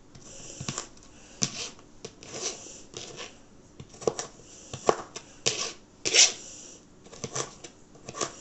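Kitchen knife cutting a carrot on a chopping board: irregular knocks of the blade on the board mixed with short scrapes.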